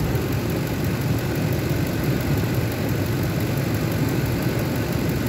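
Ford truck's engine idling steadily, a low even running sound.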